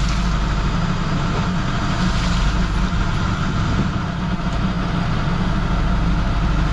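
A boat's engine running steadily with a low, even drone.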